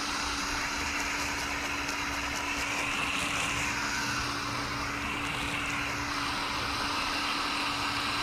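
Water spraying steadily onto boat carpet, rinsing the road grime out, with a steady hum underneath.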